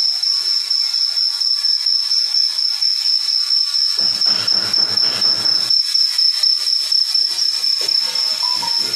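A steady high-pitched whine, like insect chirring, over a hiss. Bursts of rustling noise come in about four seconds in and again near the end.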